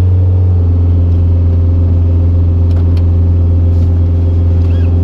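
Cat 279C compact track loader's diesel engine running at a steady speed, a loud, even drone.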